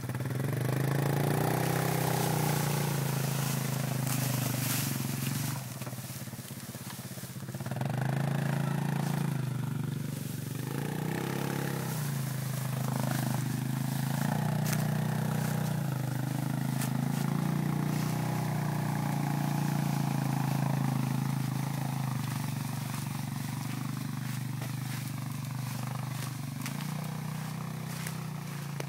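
Vehicle engine running throughout, its pitch rising and falling as the throttle changes, with a brief dip around six seconds in.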